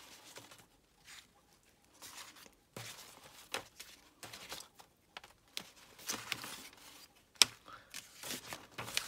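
Paper and cardstock rustling and sliding as a stack of handmade scrapbooking pieces is pulled out of a stuffed envelope and handled, with scattered light taps and a sharp tap about seven and a half seconds in.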